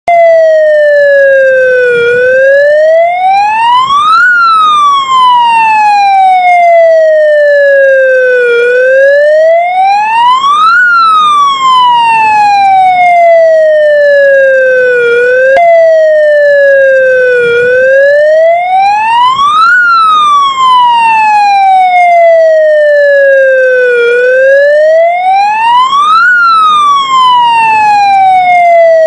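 Ukrainian ambulance siren in a slow, loud wail. The pitch rises for about two seconds and falls for about four, over and over, with one abrupt skip in pitch about halfway through.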